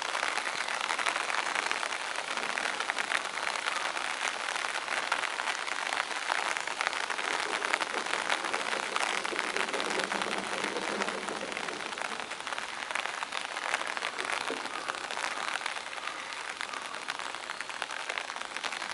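Steady rain falling, a dense hiss of many small drop hits.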